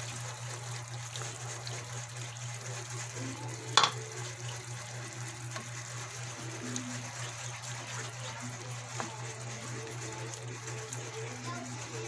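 Cream poured into a pan of simmering spaghetti sauce and stirred in with a wooden spatula: soft liquid pouring and sloshing over a steady low hum. One sharp knock comes about four seconds in.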